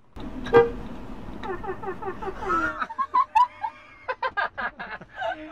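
People laughing in a car cabin: a run of quick laughing pulses, then a string of separate rapid laughs about four seconds in, with a sharp click near the start.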